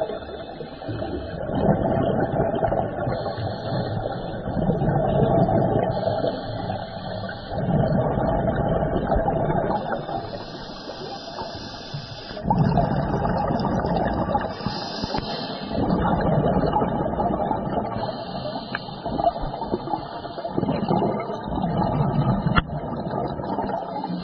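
Scuba diver breathing through a regulator, heard underwater: a short hissing inhale, then a longer rush of exhaled bubbles, repeating every four to five seconds.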